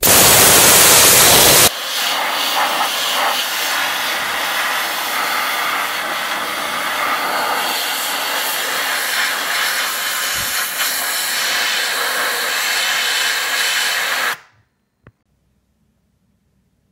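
Compressed-air gun blasting dirt off a snowmobile carburetor: a loud, steady hiss. It is strongest for the first second or two, drops slightly, and cuts off sharply a couple of seconds before the end.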